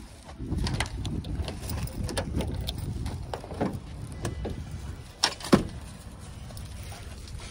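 Keys jingling and clicking against a Toyota pickup's driver door lock, then two sharp latch clicks a little past halfway as the door is unlatched and pulled open, over a low rumble.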